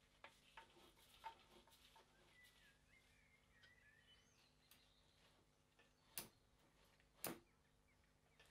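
Near silence, with a few faint ticks of a screwdriver seating a dome-head screw in the first second or so, and two sharper clicks about six and seven seconds in as gloved hands take hold of the cast-iron potato chip cutter's frame.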